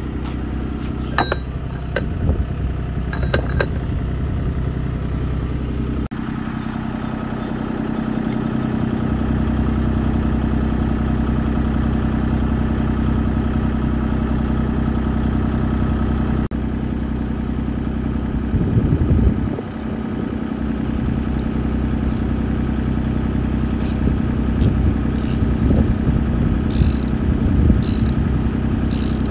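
Diesel engine of a mini excavator idling steadily, with light metal clinks of a wrench on the track tensioner fitting near the start and near the end, and a brief louder clatter about two-thirds of the way through.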